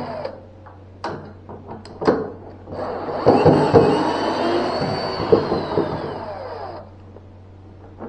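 Cordless drill-driver with a size 8 bit unscrewing the screws that hold the plastic washing machine tub together. A brief burst of the driver and a few clicks and knocks as the tool is set on the next screw come first. Then the driver runs for about four seconds, its motor whine falling in pitch before it stops.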